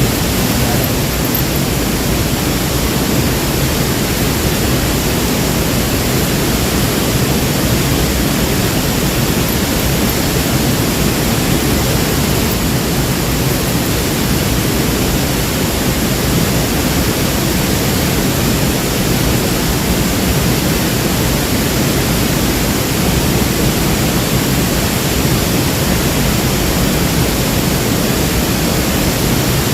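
Waterfall: falling water making a loud, steady rush that does not change.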